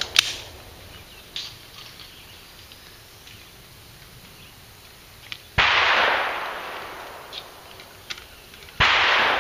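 Two shotgun shots about three seconds apart, each with a sharp crack and a long echoing decay, fired from another gun than the one in hand. Before them, a sharp clack and a few light clicks as an over-under shotgun is broken open and handled.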